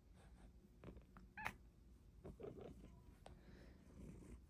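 Quiet Bengal cat sounds: faint purring, with one brief, quiet meow about a second and a half in.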